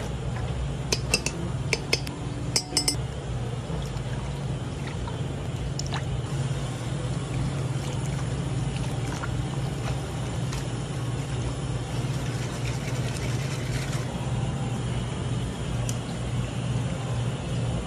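Ladle scooping and pouring soup between steel pan and bowl, over a steady low hum. A few sharp metal clinks of the ladle against the steel pan come about one to three seconds in, and fainter clicks follow later.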